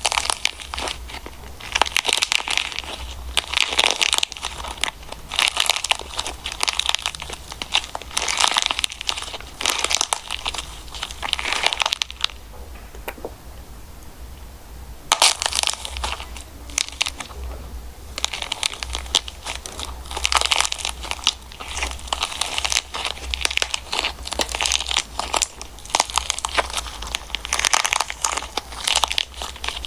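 Slime being squeezed and worked by hand, making crackling, popping sounds in repeated bursts of quick clicks, with a short pause about halfway through.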